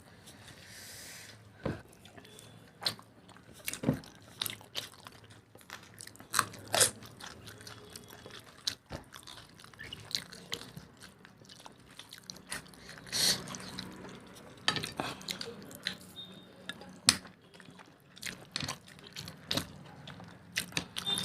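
Close-up eating sounds: irregular wet chewing, lip smacks and small clicks from mouthfuls of mutton curry and rice.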